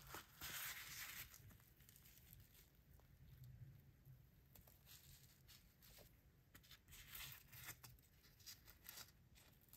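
Faint tearing and crackling of a fried bhatura being pulled apart by hand. It is strongest in the first second, then comes in scattered short rips.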